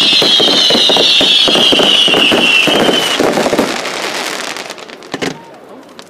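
Fireworks: a high whistle slowly falling in pitch over a dense, fast crackle. The whistle stops about three seconds in, the crackle dies away over the next second or two, and there is a single sharp pop near the end.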